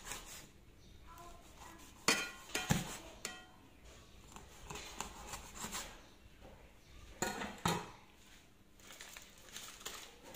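Kitchen clatter: a few sharp clinks and knocks of pots and utensils, in two pairs about half a second apart, the first about two seconds in and the second about seven seconds in.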